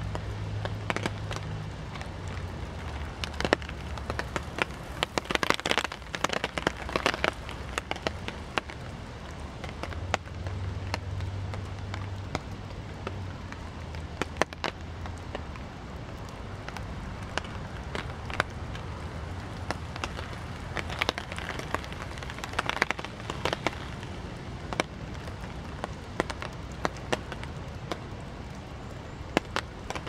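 Heavy typhoon rain falling in a forest: a steady hiss of rain with frequent sharp taps of large drops landing close by, clustered most thickly at a few moments.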